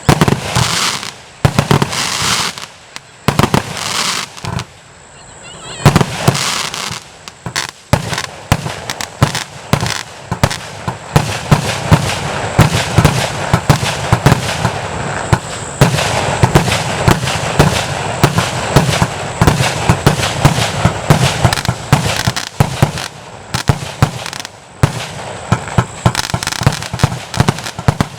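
A 240-shot compound fireworks cake firing: a rapid series of shots and bangs, with short pauses in the first few seconds, then a dense, almost unbroken barrage from about six seconds in.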